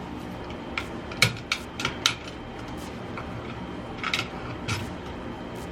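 Sharp metallic clicks and clinks of hand tools being handled during electrical wiring work: a quick run of about five in the first two seconds, then two more around four seconds in.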